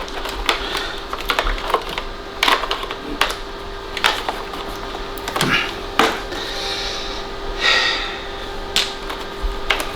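Irregular clicks, knocks and rattles of a smashed Vax vacuum cleaner's broken plastic casing being handled, over a faint steady hum.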